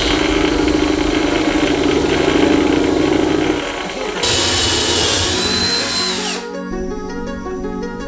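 Wood lathe running as a parting tool cuts into a spinning wooden spindle, parting off a small turned ball. A high hiss about four seconds in ends suddenly with a falling tone.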